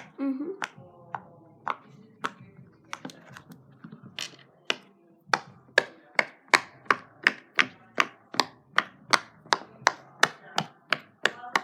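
Silicone Pop-It fidget toy having its bubbles pressed through one by one, each giving a short pop. A few scattered pops at first, then a steady run of about three a second.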